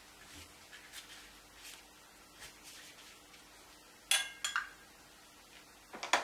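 Soft strokes of a wide paintbrush on watercolour paper. About four seconds in comes a sharp clink with a short ring, then a second clink just after, and a quick cluster of light knocks near the end: painting tools knocking against hard dishware.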